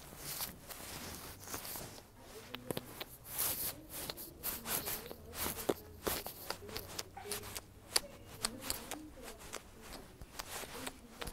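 Rustling of a nylon puffer jacket and hands working through dreadlocks: a string of irregular soft scratches and clicks.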